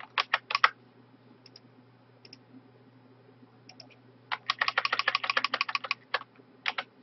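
Computer keyboard typing: a few quick keystrokes near the start, then a fast run of about fifteen keys in the second half, and two more keystrokes near the end.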